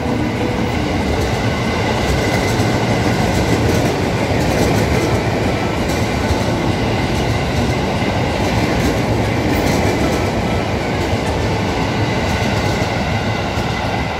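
A KRL commuter electric multiple unit running through the station at speed: a steady rush of wheels on rails as the cars go by, with wheel clatter over the rail joints.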